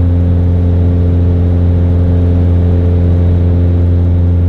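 Mooney M20J's 200 hp Lycoming four-cylinder engine and propeller running steadily at full takeoff power during the initial climb: a loud, even drone that holds one pitch.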